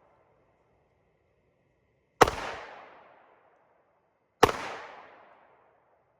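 Two sharp bangs about two seconds apart, each fading out over about a second.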